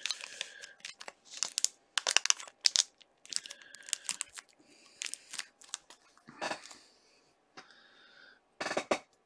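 Clear plastic card sleeve and toploader crinkling and rustling in a string of short, irregular crackles as a trading card is handled and slipped into it.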